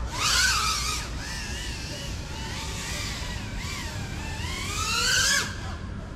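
FPV quadcopter's brushless motors whining, the pitch sweeping sharply upward as the motors speed up right at the start and again about four seconds in, wavering up and down in between. The whine is loudest just before it drops away suddenly near the end.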